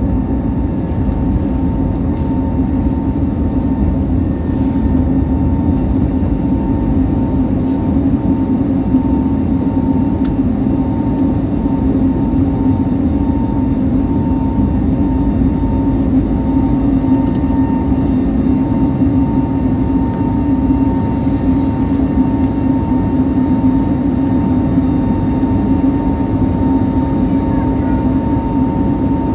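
Airbus A320neo heard from inside the passenger cabin: a steady engine and airflow hum with a constant tone, holding level and pitch throughout.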